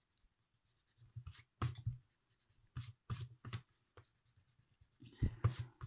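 An eraser rubbing quickly back and forth over sketchbook paper, erasing the pencil underdrawing from beneath dried ink lines, in several short bursts of strokes.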